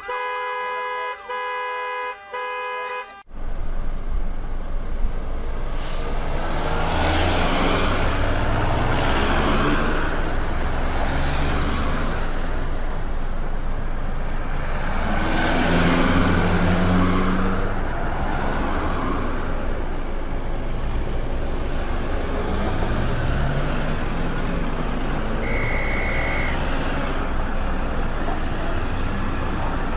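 A vehicle horn sounds in long blasts with short breaks for about three seconds, then gives way to dense street traffic: engines running and vehicles passing in swells, some revving up as they pull away. A short high toot comes near the end.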